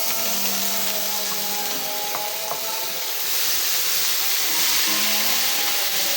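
Background music over a steady rough, scraping or hissing noise, with a few faint ticks about two seconds in.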